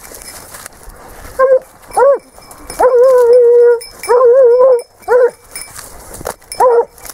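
Spanish hound (sabueso español) baying while trailing a wild boar scent on the leash: a few short yelping bays and two longer, wavering drawn-out bays in the middle, the hound giving tongue on the scent.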